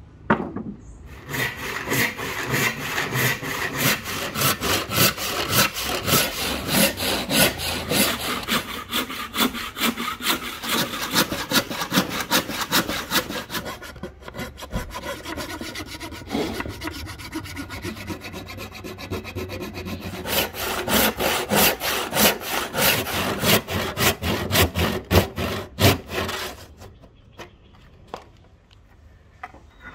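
Hand saw cutting through a thick rosewood plank along a curved line, in quick back-and-forth strokes. The sawing stops a few seconds before the end.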